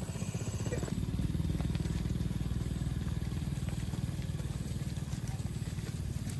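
A small engine running steadily with a fast, even pulse, growing a little louder about a second in.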